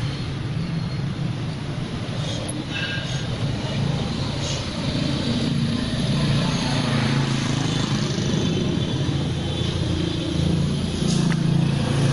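Street traffic: the steady running of passing vehicle engines, with a few faint light clicks.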